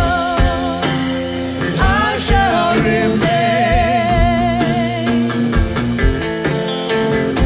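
A live blues-rock duo: a woman sings with a wavering vibrato while playing a drum kit, over electric guitar.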